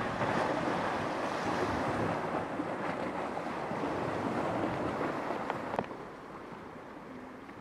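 Small sea waves washing over a pebble beach, with wind noise on the microphone. A sharp click comes about six seconds in, and the sound is quieter after it.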